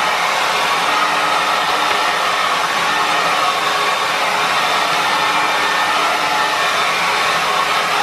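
Two handheld hair dryers running together: a steady rush of blown air with a faint hum from the motors.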